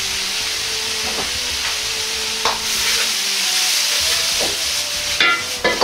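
Thinly sliced carrots sizzling in a hot wok, its sauce almost cooked off and sesame oil just added, while a metal ladle stirs them. The ladle knocks against the wok about six times, and the loudest knocks, near the end, ring metallically.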